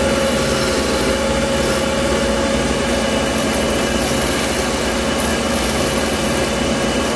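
Taurus 3 diamond-plated ring saw running steadily with an even hum and a constant tone while cutting into a piece of dichroic fused glass.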